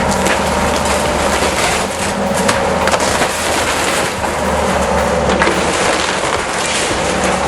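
A heavy excavator's engine runs steadily under continuous crunching and cracking of wood and debris being crushed, typical of demolition work.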